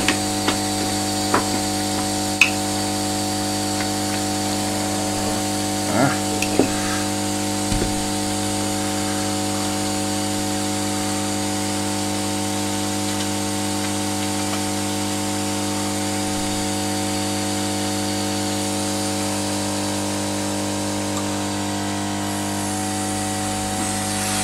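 Hot-air gun blowing at full power, set to about 500 degrees: a steady hum with airflow hiss. A few small clicks and taps come in the first several seconds.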